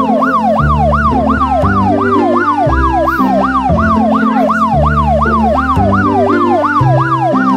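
Fast yelp-style siren sweeping up and down, about two and a half sweeps a second, over background music with a low repeating bass line.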